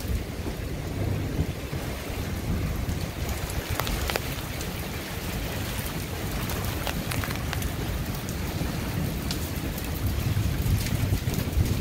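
Thunderstorm wind gusting in a low rumble, with scattered ticks of raindrops. The gusts grow louder near the end.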